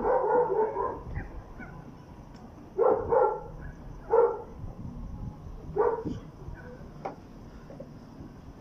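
A dog barking repeatedly, about five separate barks spread over the first six seconds, then a lull.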